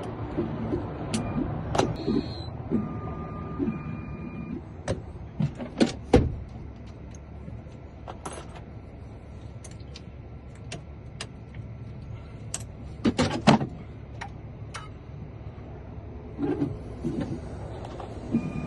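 Key-cutting machine running steadily while keys are duplicated, with scattered sharp clicks throughout.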